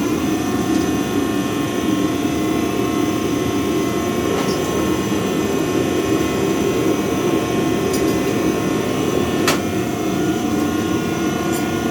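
Propane forge burner running with a steady, even rush as a piece is reheated. A few faint ticks sound over it, about four seconds in and again near the end.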